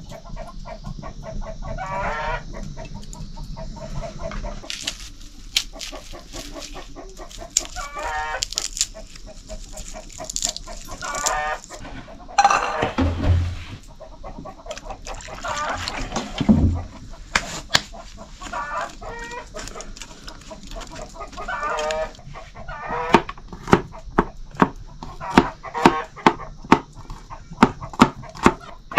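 Domestic chickens clucking and calling on and off, with a rooster crowing. In the last several seconds a knife chops on a plastic cutting board in quick, regular taps, about two a second.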